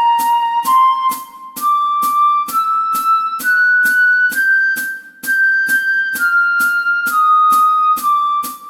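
Flute playing a slow scale exercise, one held note after another, stepping up in pitch to a high point near the middle and then back down. A steady beat of clicks runs beneath it about twice a second.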